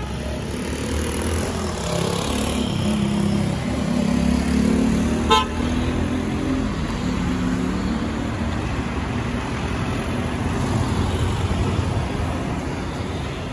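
Jet airliner flying low overhead on approach, a steady loud engine rumble that swells toward the middle and holds. A short horn toot about five seconds in.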